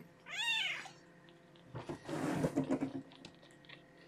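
A one-week-old kitten gives one short, high cry that rises and falls in pitch about half a second in. About two seconds in comes a rustling scuffle of the towel as she is picked up.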